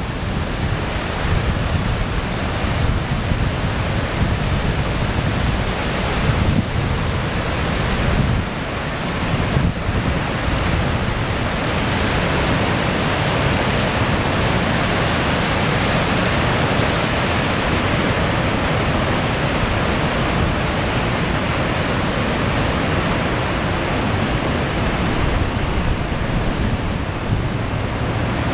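Fast-flowing floodwater rushing and churning into whitewater as a steady, loud wash of noise, with wind buffeting the microphone.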